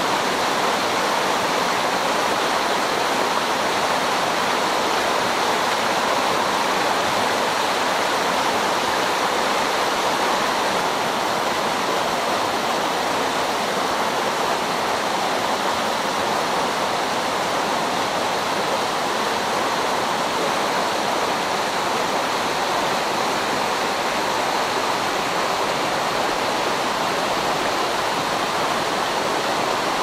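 Mountain stream rushing and splashing over boulders and small cascades, a steady, unbroken rush of water.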